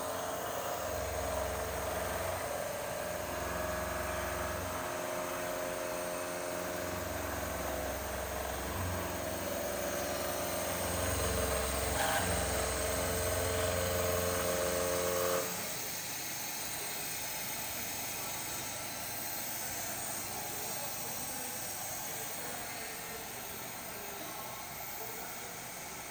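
CNC milling machine taking a roughing cut in D2 tool steel with an indexable-insert face mill: a steady whine of several tones over a low rumble that swells and fades. About 15 s in the whine and rumble stop, leaving a quieter steady hiss and machine hum.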